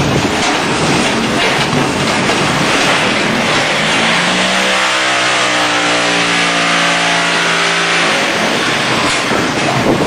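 Concrete block making machinery running: a steady mechanical clatter and rumble from the machine and its belt conveyor, with a steady humming tone that joins in about four seconds in and stops about four seconds later.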